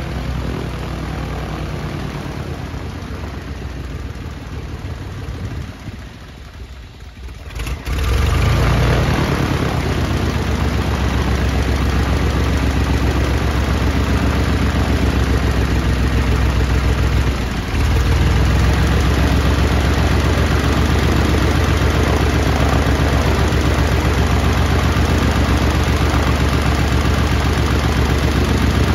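Uncowled Continental IO-520-BB fuel-injected flat-six aircraft engine running on the ground, turning its propeller, on its first run after installation. The sound sinks low about six seconds in, comes back sharply about eight seconds in and runs steadily louder, with a brief dip about seventeen seconds in.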